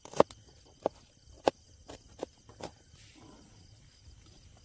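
Kitchen knife chopping on a cutting board: six sharp knocks about half a second apart, then a pause of about two seconds near the end.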